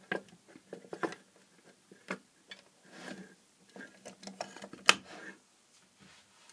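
Scattered clicks and knocks of hands handling test leads, cables and a multimeter on a workbench while a small LED floodlight is connected and powered up, with one sharp loud click about five seconds in.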